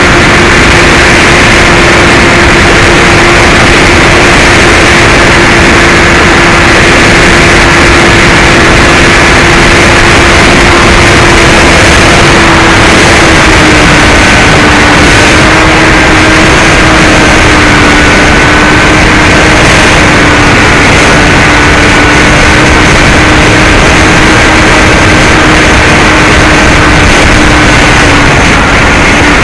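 Brushless electric motor and 9x6 propeller of a Bixler 2 RC plane, heard from its onboard camera: a steady droning whine over loud wind rush. The pitch drops slightly about halfway through as the throttle eases, then holds.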